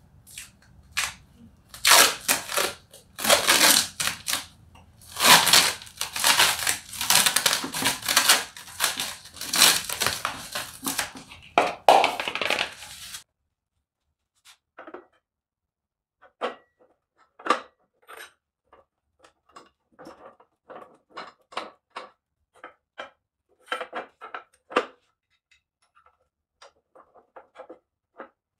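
Hands working at the top of a manual truck transmission. For about thirteen seconds there is dense crinkling and scraping handling noise, then it drops suddenly to quiet, with scattered light clicks and taps as the gearshift stick is fitted into the shift opening.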